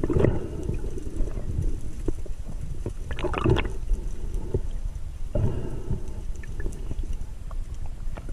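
Muffled underwater noise picked up by a submerged camera: water gurgling and rushing past it, with louder swishing surges about three seconds apart.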